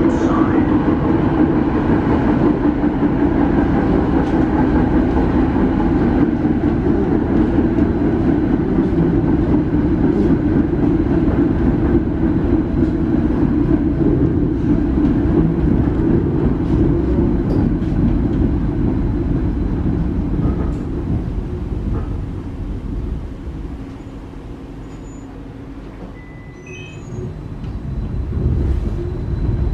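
Croydon Variobahn tram running, heard from inside the car: a steady rumble with a hum from the running gear. It quietens about two-thirds of the way through, then grows louder again near the end.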